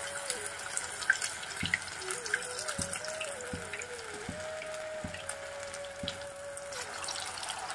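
Paneer-and-gram-flour pakoras deep-frying in hot oil in a kadhai: a steady sizzle with scattered small crackling pops.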